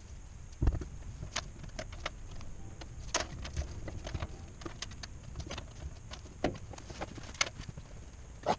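Irregular small clicks and knocks of hands handling parts and fittings under a vehicle, with one duller low thump less than a second in.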